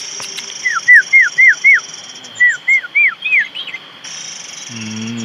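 A bird singing two runs of clear whistled notes, five and then four in quick succession, each note sliding down in pitch, over a steady high insect drone.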